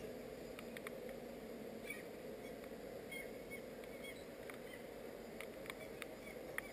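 Faint outdoor ambience: a steady low hiss with scattered light ticks and a few short high chirps.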